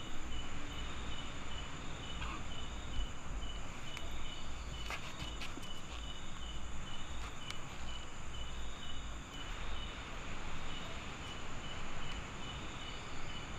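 Crickets chirping at night: a steady chirp pulsing about three times a second, with a higher continuous insect trill behind it, over a low rumble.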